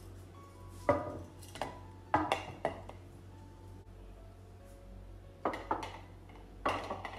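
Hard kitchen items clinking and knocking as they are handled and set down, in several short clusters of sharp clatter, over a low steady hum.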